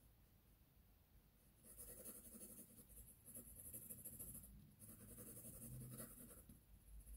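Faint scratching of a 2H graphite pencil shading on drawing paper, starting about a second and a half in and going on in strokes with short breaks.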